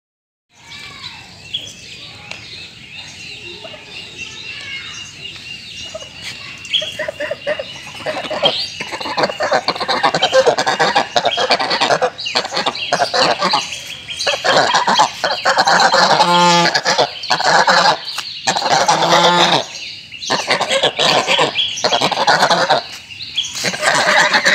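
Domestic geese honking and calling. The calls are fainter at first, then loud, harsh and irregular from about eight seconds in.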